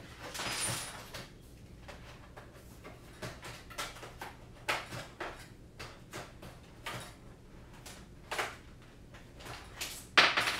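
Handling noises from small objects being moved about on a desk: scattered clicks and knocks, a rustling burst about half a second in, and a louder clatter near the end.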